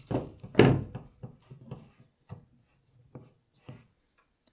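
Stripped 12-2 copper cable conductors being handled: a run of short clicks and rubs, the loudest a thump about half a second in, then fainter ticks further apart.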